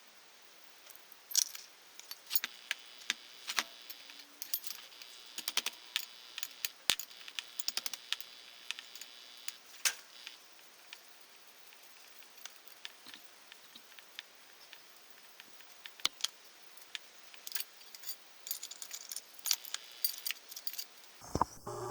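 Irregular metallic clinks and light rattles of small metal engine parts and tools being handled.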